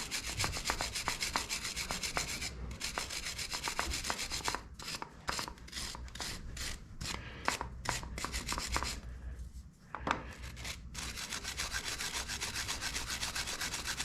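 Soft-metal wire brush scrubbed by hand over the heads of small screws, quick scratchy back-and-forth strokes, spaced out in the middle with a short pause about two-thirds through before the brushing picks up again. The brushing is cleaning old paint and grime off the fasteners without taking off their bluing.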